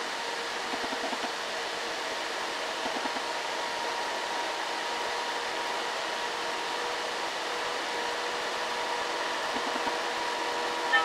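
Diesel engine of a laden Isuzu light truck running steadily as it climbs an incline, heard from a distance as a steady drone with a faint whine. A brief loud tone comes right at the very end.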